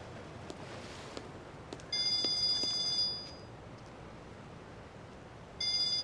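Phone ringing with an electronic ringtone: one ring lasting about a second, then a second ring starting near the end.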